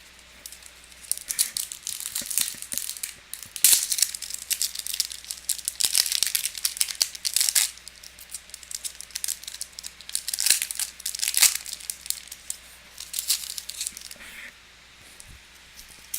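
Foil trading-card pack wrapper crinkling and tearing in irregular bursts as it is torn open and handled by hand.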